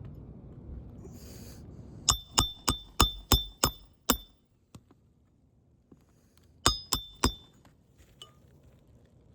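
Hammer striking a metal roof snake nailing tool to drive roofing nails under a shingle: a quick run of seven ringing metallic strikes about three a second, then three more a couple of seconds later.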